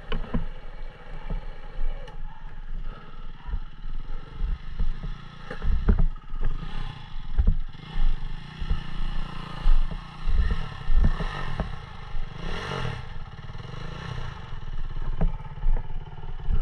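Dirt bike engine running as the bike is ridden over a bumpy track, with repeated knocks and clattering from the bumps.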